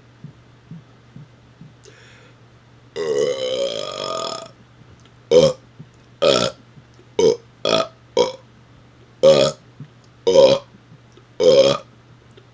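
A man burping up air he has swallowed: one long belch with a wavering pitch, then eight short burps in quick succession. A few faint clicks come before them.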